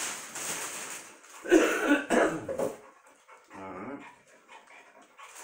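A dog barking several times in short bursts, loudest about a second and a half in, with a weaker bark near four seconds. Before that comes the rustle of a large TV's plastic wrapping being handled.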